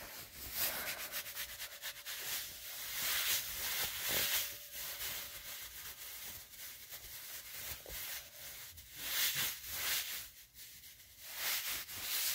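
A squishy stress ball squeezed and rubbed by hand close to the phone's microphone, making irregular scratchy rubbing sounds that come and go in swells.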